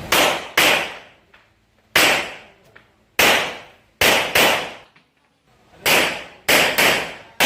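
Semi-automatic pistol fired about nine times at an uneven pace, partly in quick pairs, each shot dying away over about half a second.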